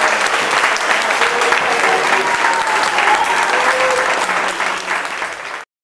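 Audience applauding, a dense clatter of many hands clapping that cuts off suddenly near the end.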